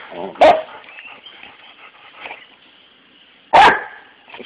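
A dog barks twice, two short single barks about three seconds apart, at a rhino beetle on the ground.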